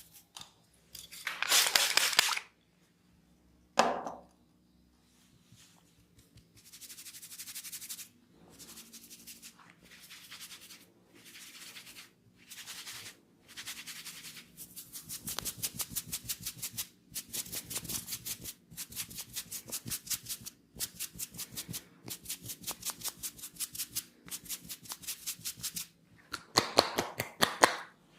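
Massage sounds: rapid runs of sharp clicking snaps in bursts about a second long with short gaps between them, busier in the second half. A louder rushing rub comes about two seconds in and again near the end.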